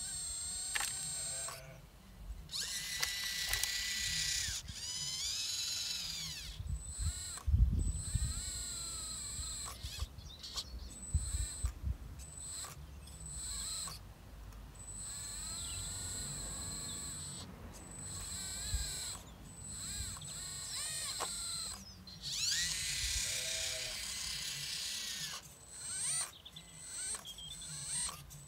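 Hydraulic RC excavator's pump and valves whining in repeated starts and stops as the boom, arm and bucket move, the pitch gliding up and down with the load. Two longer stretches of hiss, and a few low thumps, the loudest about a third of the way in.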